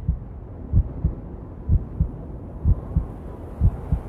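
Heartbeat sound effect: low double thumps, lub-dub, repeating about once a second over a faint low hum.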